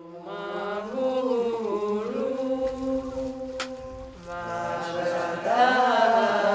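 Chanted vocal music: long held notes that bend slowly from one pitch to another, swelling louder about five seconds in.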